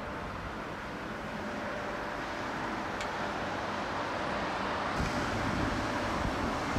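Steady outdoor background noise, a low rumble and hiss like distant traffic, growing slightly louder toward the end, with a couple of faint clicks.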